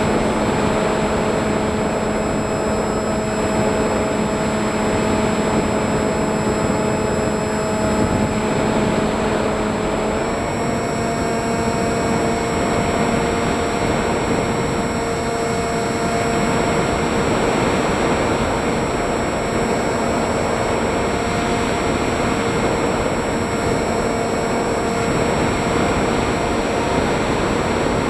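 FPV model aircraft's motor and propellers running steadily at a whining pitch, stepping slightly higher about ten seconds in, over rushing air noise.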